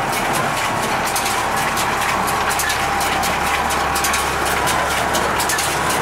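International conventional small square baler running off a tractor's PTO: a steady mechanical clatter of rapid, irregular rattles from the pickup and drive, with the tractor engine running underneath.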